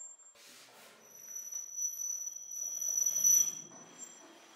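A small object rubbed across a sheet-metal panel sets up a high, steady squeal with several pitches at once. It swells to its loudest about three seconds in and then dies away, after a short rasp near the start.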